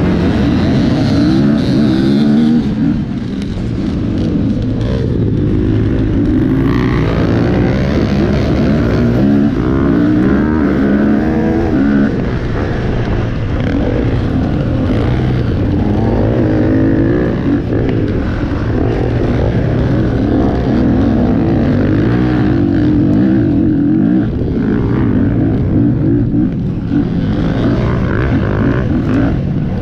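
Off-road motorcycle engine running hard, its pitch rising and falling again and again as the throttle is worked and gears change.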